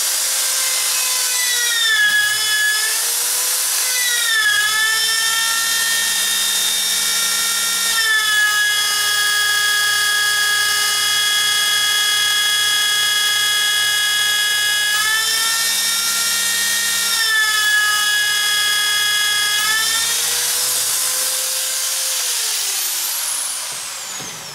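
Power drill spinning a Bosch DC dynamo's armature for a bench test: a steady high motor whine that sags in speed a few times, then winds down and stops near the end. The freshly refurbished dynamo turns freely and puts out voltage, showing it is working again.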